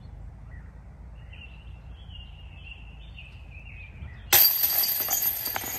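A disc golf putt hitting the chains of a basket about four seconds in: a sudden metallic chain clash and jingle that rings on and fades over a second or so as the disc drops in.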